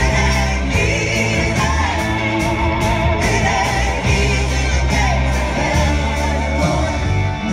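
A large live band playing, with a woman singing lead over drums, cymbals, electric guitar and keyboards, heard from the audience in a theatre.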